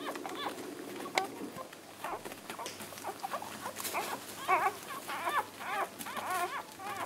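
Newborn whippet puppies, two days old, squeaking and whimpering as they nurse: short high calls that waver up and down, coming thick and fast from about four seconds in, with scattered soft clicks and one sharp click about a second in.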